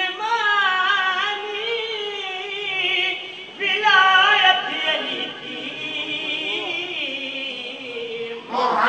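A man's voice singing an unaccompanied devotional qasida through a microphone, in long ornamented lines with bending pitch and a short pause before about 3.6 s. Near the end, other men's voices come in louder, in chorus.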